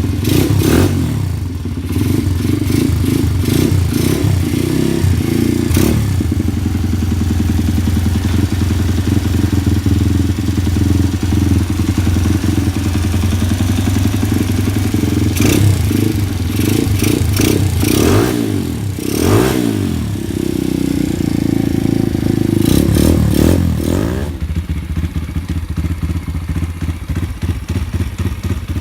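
Pit bike's Piranha 140cc single-cylinder engine running through its exhaust, idling between several sharp throttle blips that rev it up and let it fall back. After about 24 seconds it settles to a quieter idle.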